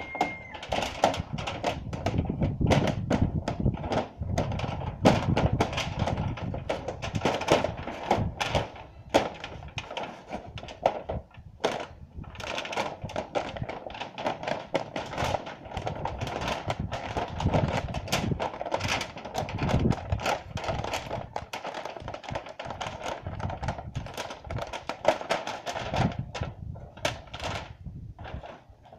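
Dense, irregular knocking and clattering of corrugated metal roofing sheets and wooden beams being handled and worked on the ground.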